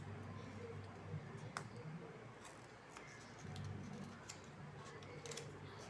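Paper being handled while making a paper craft, with a handful of short, sharp clicks and snips scattered through, over a low steady hum.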